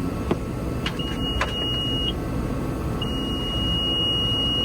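Tractor cab warning beeper sounding two steady high-pitched beeps, the second about twice as long as the first, with a few light clicks of a key or switch and no engine cranking: the tractor fails to start after its sensor wiring was changed.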